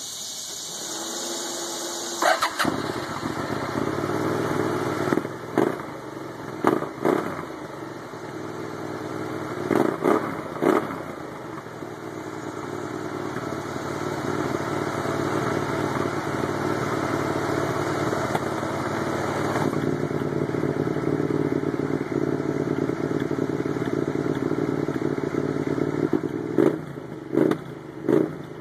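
Hyosung GT650R V-twin cranked on the starter for about two seconds until it catches, then idling through a Leo Vince Evo II slip-on exhaust with its silencer insert fitted. The throttle is blipped in short revs several times in the first ten seconds and three times near the end.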